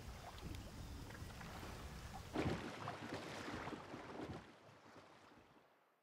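Outdoor ambience with a steady low rumble. About two and a half seconds in, a louder rushing noise comes in and then fades out to silence.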